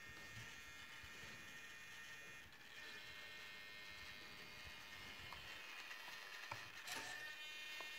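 Faint steady electronic whine, typical of the glider's powered-up digital servos holding position, with a few light clicks about five to seven seconds in.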